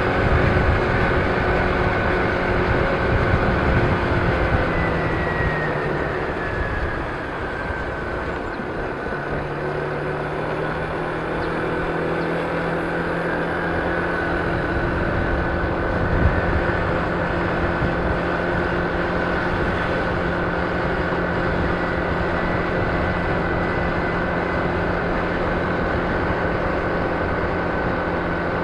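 Kymco scooter riding along a road: the engine runs with a steady whine over road and wind noise on the microphone. About five seconds in, the engine pitch falls and the sound dips a little. From about nine seconds on it holds one steady pitch.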